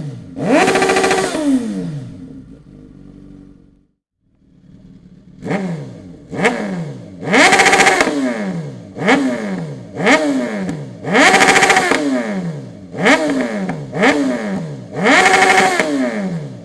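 Suzuki GSX-S1000's inline-four engine through a Dominator aftermarket exhaust, revved in short throttle blips, each rising quickly and falling back. One blip near the start, a brief break, then about nine more in quick succession, the loudest around the middle and near the end.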